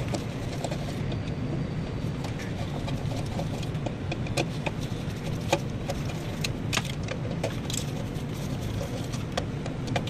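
Steady low hum of running machinery, with scattered small metallic clicks and taps as ring-terminal wires and a screwdriver are worked at a contactor's terminal screws.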